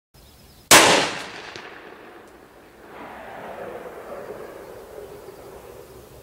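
A single shot from a Para-Ordnance .45 ACP pistol about a second in, sharp and loud, ringing off and echoing for a couple of seconds.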